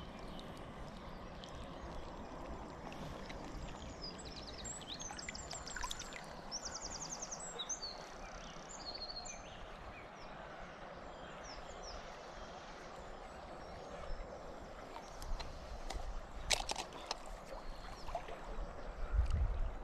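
Small stream's water running as a steady hiss, with a bird singing quick high chirps and trills from about four to nine seconds in. A few sharp knocks come near the end, and a low rumble just before it.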